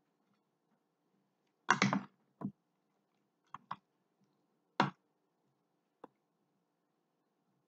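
Metal spoon clinking and scraping against a stainless steel mixing bowl while stirring a thick filling: a few scattered clinks, the loudest cluster about two seconds in.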